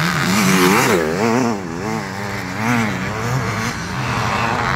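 Motocross bike engines on the track, one revving up and down in quick swells about twice a second while others run steadily beneath it.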